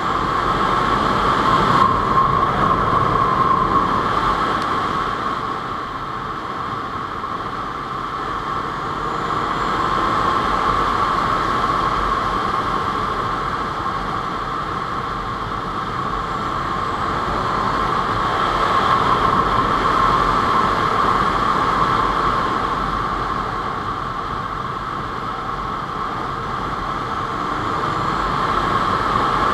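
Honda CBR600F4i inline-four sport bike ridden at speed, heard through a helmet-mounted camera: engine running under a steady rush of wind, swelling and easing a few times.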